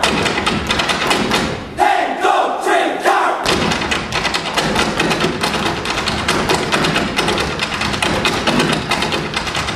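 Irish hard-shoe step dancing: a group of dancers beating out fast heel-and-toe taps on a stage floor over backing music. The taps turn into a dense, unbroken flurry about three and a half seconds in.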